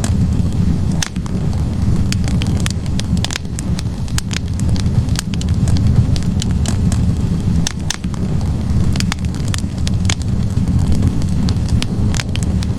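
Wood fire burning in a fireplace: a steady low roar of flames with frequent sharp, irregular crackles and pops from the logs.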